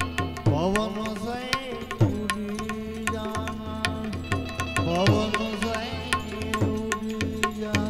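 Live bhajan accompaniment: tabla-style hand drums keep a quick, even beat, with bass strokes that slide in pitch, over held melodic tones.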